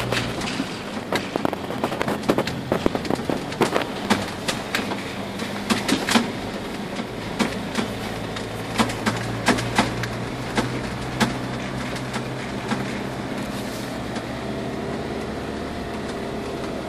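Land Rover Defender's engine running steadily under light throttle, heard from inside the cab. Frequent sharp knocks and rattles come through as the body jolts over a rough gravel track, thickest through the first twelve seconds or so.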